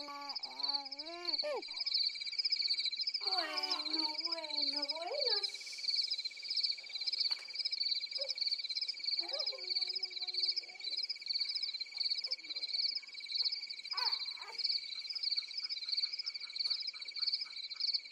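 Chorus of insects and frogs: a high pulsing trill repeating a few times a second over a steady high shrill tone. A person's voice makes a few short gliding sounds in the first half.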